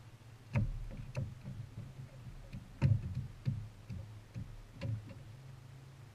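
Irregular knocks and clunks on a small fishing boat's deck and hull, about eight in a few seconds with the loudest near the middle, as a landing net and rod are handled and set down with the catch.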